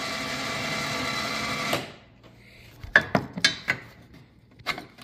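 Electric UTV winch motor spooling in its steel cable with a steady whine, which cuts off sharply about two seconds in. A handful of sharp clicks and knocks follow as the front bumper is handled.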